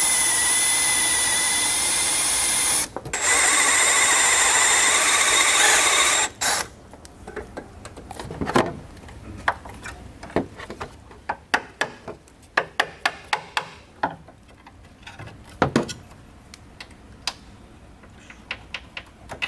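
Cordless drill running under load as it drills out spot welds in a steel bracket: two runs of about three seconds each with a brief stop between, the second with a lower whine. Then a string of sharp metallic taps and clicks as the weakened bracket is worked loose with a flat-head screwdriver.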